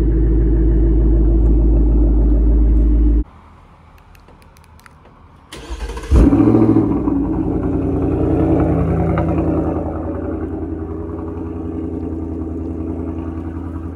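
2024 Ford Mustang GT's 5.0 V8 through a Borla S-Type cat-back exhaust, idling steadily until the sound stops abruptly about three seconds in. About six seconds in the nearly warm engine is started again: a brief crank, a flare in revs, then it settles to a steady idle that drops a little lower a few seconds later.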